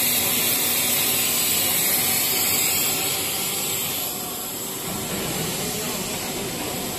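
Machinery of a PE helical corrugated pipe extrusion line running: a steady hiss with a low hum beneath, a little quieter from about halfway on.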